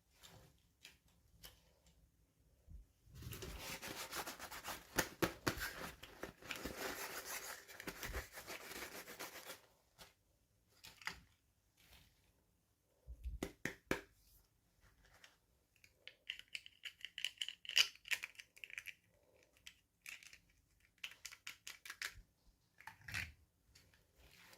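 Toy packaging being opened: several seconds of continuous tearing and crinkling, then scattered clicks, taps and short rustles as the pieces are handled, with a brief squeaky rub about two-thirds of the way through.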